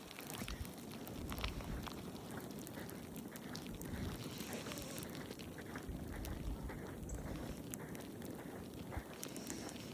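Faint footsteps in snow, irregular soft steps over a low, steady outdoor rumble.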